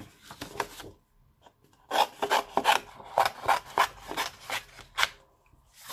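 Scissors cutting through blue paper in a steady run of short snips, about three to four a second, after a few snips and a brief pause near the start.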